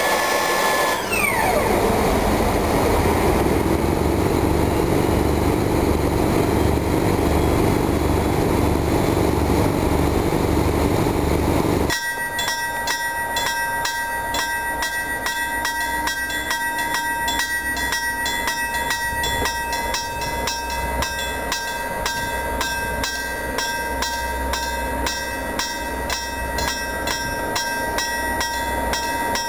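Finnish Dv12 diesel-hydraulic locomotive, with its SACM MGO V16 four-stroke engine, running as it rolls slowly past close by, with a low, even pulsing rumble. About twelve seconds in, this gives way to a quieter approach of the locomotive from a distance, over a fast, evenly repeating two-tone ringing.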